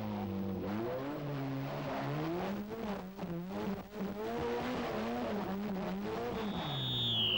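Rally car engine revving, its pitch rising and falling over and over, with a brief high squeal falling in pitch near the end.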